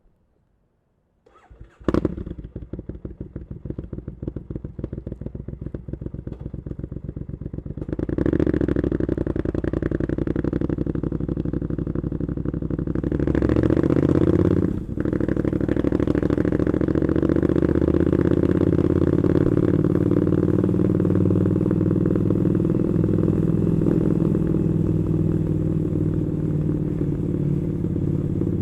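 Triumph Scrambler 900's parallel-twin engine with Arrow exhaust starting up about two seconds in and idling with an uneven beat. About eight seconds in it revs up as the bike pulls away, dips briefly at a gear change, then runs steadily under way.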